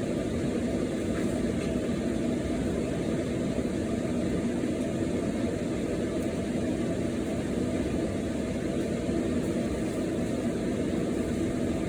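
A steady, even low drone from a running appliance, with no breaks or changes.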